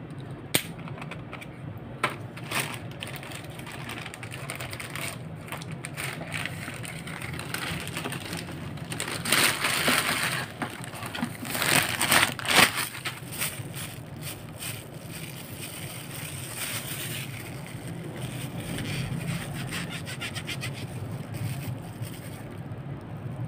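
Plastic packaging rustling and crinkling as hands handle a parcel, with two sharp clicks in the first two seconds and louder bursts of crinkling about halfway through, as a tripod in a plastic sleeve is pulled out of a plastic mailer bag. A low steady hum runs underneath.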